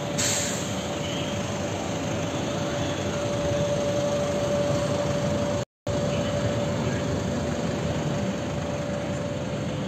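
Steady aircraft engine noise with a constant high whine running throughout. The sound cuts out completely for a moment a little past halfway.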